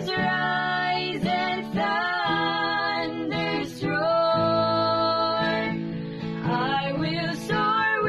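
A woman singing a worship song over acoustic guitar, with one long held note about halfway through.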